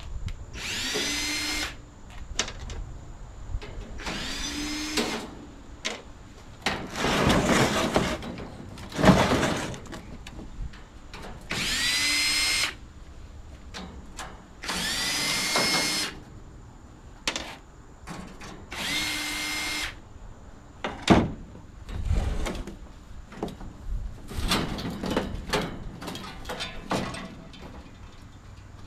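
Cordless drill backing screws out of the top panel of an AC condenser unit in about seven short runs. Each run is a whine that rises as the motor spins up, then stops. Later come a string of short clicks and knocks.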